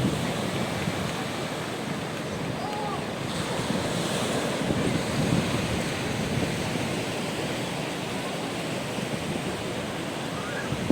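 A steady outdoor rushing noise with no distinct knocks or machine rhythm.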